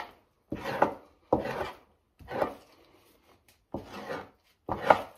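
Two-handled fleshing knife scraping fat and membrane off a raccoon hide stretched over a PVC fleshing beam: about six short scraping strokes, each under half a second, with brief pauses between.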